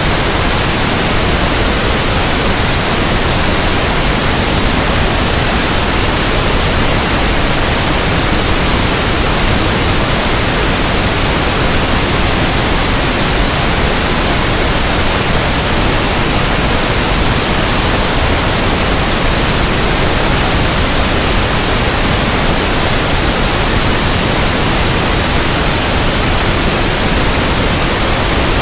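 Pink noise: a steady, even hiss that does not change.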